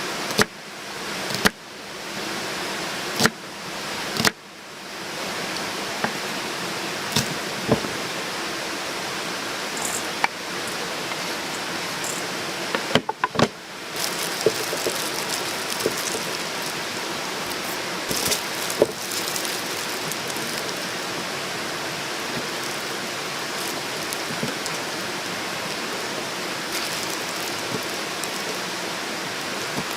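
A steady hiss of falling or rushing water, with scattered sharp clicks and knocks, mostly in the first half.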